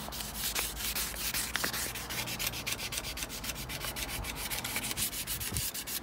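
Soaked 1500-grit wet-and-dry paper rubbed back and forth over a bicycle frame's painted tube in quick, even strokes: light wet sanding that takes off the top layer of oxidised paint.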